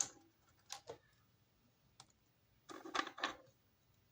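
Plastic Lego pieces clicking and rattling as they are handled and pressed together: a few sharp clicks in the first second, a single click about two seconds in, and a short clatter about three seconds in.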